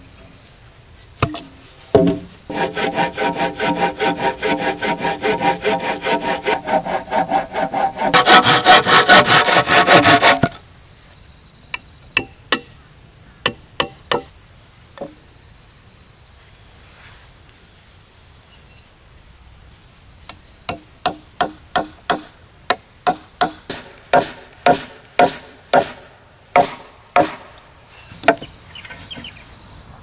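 A saw cutting through timber for about eight seconds, louder over its last two seconds. A few separate wooden knocks follow as boards are handled, then a long run of sharp hammer blows on the wooden boards, about two a second.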